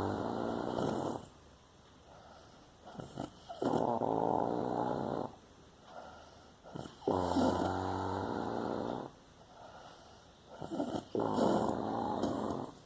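Snoring: four long, rattling snores, one about every three and a half seconds, each lasting about one and a half to two seconds with a quiet breath between.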